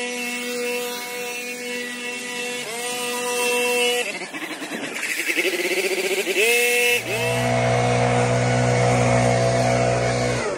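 Gas backpack leaf blower running, its engine pitch shifting and revving partway through. It gets louder and deeper about seven seconds in, then the engine pitch falls away sharply near the end.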